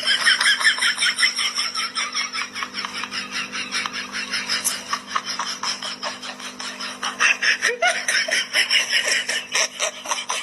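Rapid, continuous high-pitched laughter, with a steady low hum underneath.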